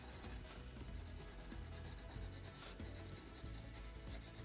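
Colored pencil shading on paper: faint, repeated rubbing strokes of the pencil tip across the paper.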